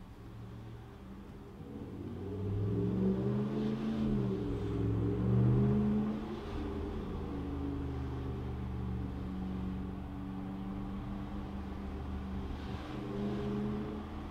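A 2019 Ram 1500's 5.7-litre V8 through a Mopar cat-back exhaust with Carven tips, heard inside the cab as the truck pulls away. The engine note rises about two seconds in, dips and rises again, then settles into a steady drone at low cruising speed, swelling slightly near the end.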